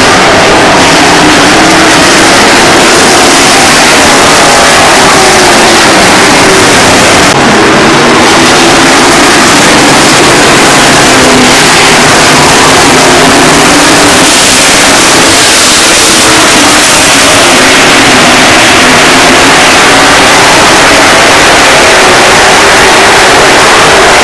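A pack of dirt-track race cars' V8 engines running hard around the oval, their overlapping notes rising and falling as the cars go through the turns and pass. Very loud, at the top of the microphone's range.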